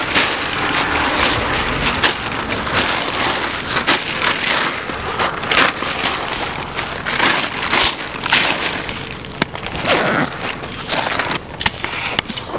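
Loud, continuous rustling and crackling right on the phone's microphone: cloth of a bag or clothing rubbing over it as the phone is handled.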